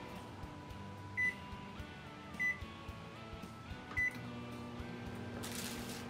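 Microwave oven keypad beeping three times as it is set to run for 30 seconds, followed by the oven's low running hum. A plastic bag rustles near the end.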